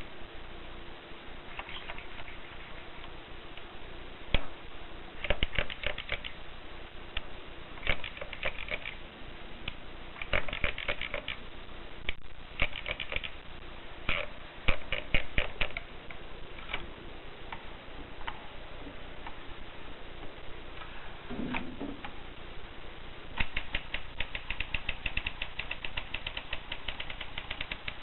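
Olympia typewriter being typed on: keys clacking in short bursts with pauses between, then a fast, steady run of keystrokes over the last few seconds.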